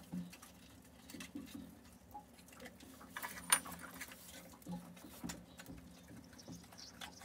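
Faint, scattered clicks and rustles of hands handling small parts, with one sharper click about three and a half seconds in.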